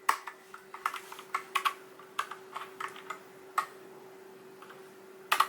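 Keys of a TADA68 mechanical keyboard being pressed in irregular clicks for about three and a half seconds, then a pause, then a quick cluster of presses near the end. A faint steady hum lies underneath.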